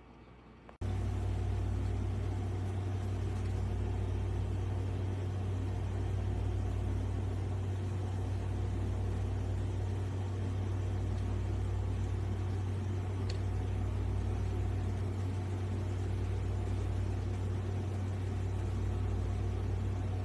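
GoveeLife 6L cool mist humidifier switching on and running: a steady low hum with a slow pulsing rumble underneath, starting abruptly about a second in.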